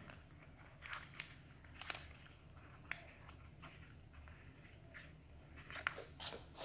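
Faint crinkling and scattered clicks of plastic packaging being handled, with a set of cabinet knobs inside.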